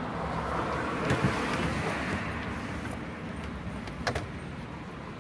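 Retractable cargo cover in a VW Golf SportWagen's trunk being unhooked and rolling back into its housing: clicks and a sliding swish about a second in, then a sharper clack about four seconds in, over steady traffic noise.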